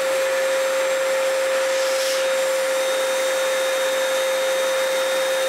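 A paint spray gun spraying varnish, with a steady rush of air and one steady whine from its air supply.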